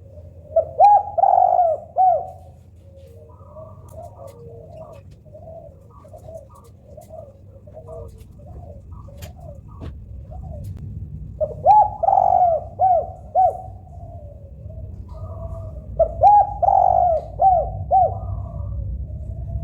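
Female spotted dove cooing, a call to attract a male: three loud phrases of arched, repeated coos, about a second in, at about twelve seconds and near the end, with softer coos between them. A low steady rumble runs underneath.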